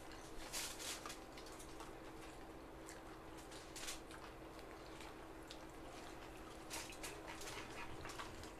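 Eating sounds at close range: mouths chewing and smacking and hands picking food off a foil-covered spread, in a handful of short sharp bursts over a faint steady hum.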